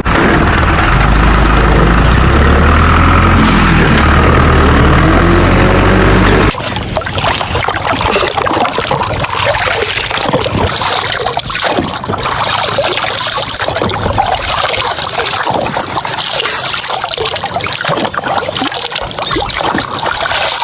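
A steady low engine-like drone for about six seconds, then a sudden cut to water spraying and splashing, a dense hiss with crackles, for the rest.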